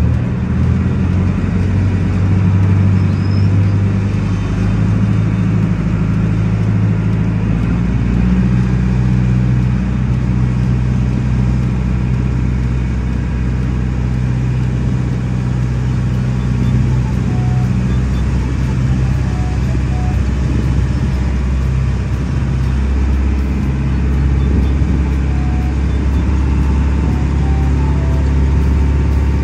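Small river passenger ferry's engine running steadily as the boat gets under way and crosses the water. Its note shifts about seven or eight seconds in, with a deeper hum that then holds steady.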